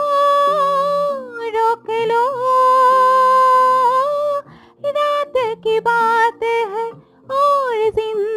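A woman singing a slow Hindi film song, drawing out one long held note in the middle, with short pauses between phrases.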